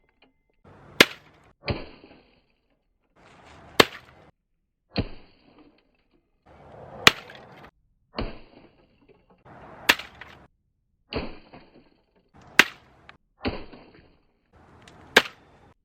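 A typewriter being struck over and over: six hard, sharp cracks, roughly one every three seconds, each preceded by a short rush of noise. Between the cracks come softer clattering hits with a brief high metallic ring.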